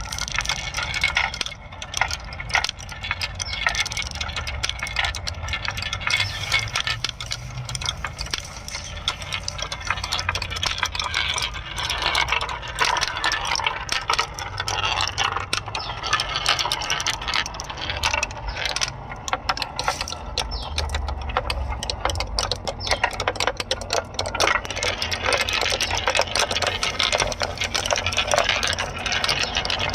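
Many marbles rolling and clacking along a homemade marble run: a dense, continuous stream of clicks over a low rolling rumble.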